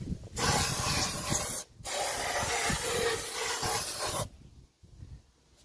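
Aerosol can of carburettor cleaner spraying through its thin extension tube in two hisses, about one second and then about two and a half seconds long, flushing the oil passages of an Opel Vectra A camshaft to clear the oil feed to a worn cam lobe.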